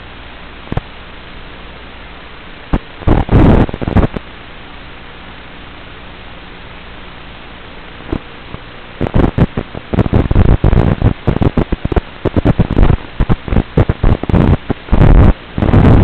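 Analog FPV video-receiver audio recorded by the goggles' DVR: a steady hiss with a low hum, broken by loud crackling static about three seconds in and almost without pause from about nine seconds on. The crackle is the sign of the analog video signal breaking up.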